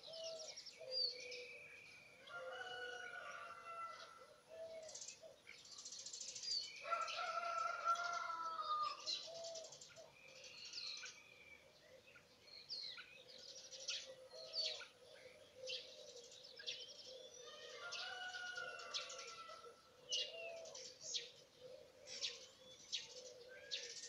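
Several songbirds singing at once, a steady stream of short chirps and whistled notes that overlap, with a lower, longer phrase coming back three times.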